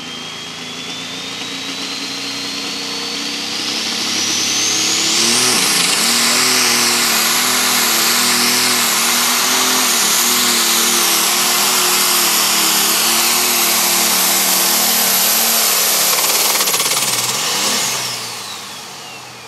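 John Deere Pro Stock pulling tractor's turbocharged diesel engine under full load on a pull. A high turbo whine climbs over the first few seconds, the engine then runs hard for about twelve seconds with its pitch wavering, and near the end it is throttled back as the whine falls away.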